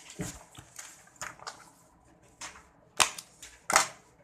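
A string of short clicks and knocks, like objects being handled, with two much louder sharp knocks about three seconds in, one after the other.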